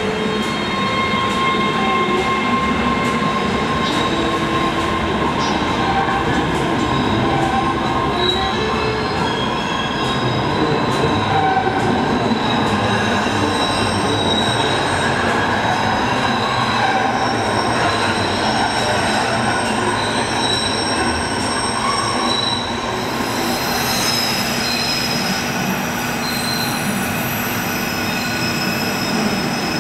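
MBTA Red Line subway trains running through the underground station: a steady rumble of the cars with wheels squealing in shifting high tones as they move slowly on curved track. About three-quarters of the way through, the sound changes as another train comes toward the platform.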